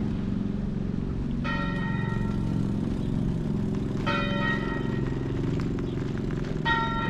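Tower clock bell striking the hour of eight: three slow strikes about two and a half seconds apart, each ringing on, over a steady low rumble.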